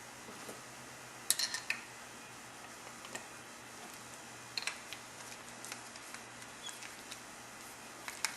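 Scattered light metallic clicks and taps of a roller chain and chain breaker tool being handled and adjusted, with a cluster of clicks about a second in and more near the middle and the end, over a faint steady hum.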